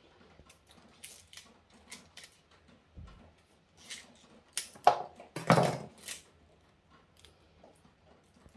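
Chef's knife working at the rubber band around a bunch of asparagus while the spears are handled: scattered small clicks and scrapes, with a louder scrape-and-rustle about five seconds in.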